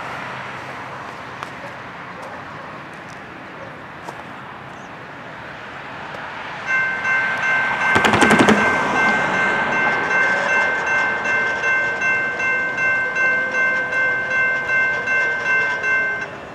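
Railroad grade-crossing warning bell starts about seven seconds in and rings steadily at about two strokes a second, then stops just before the end as the gate arms come down. Just after the bell starts, a car passes close by with a brief rush of tyre noise.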